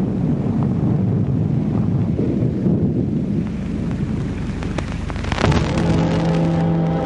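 Storm sound effect: low rumbling thunder and wind noise, then a sharp thunderclap about five seconds in, followed by music holding a sustained chord.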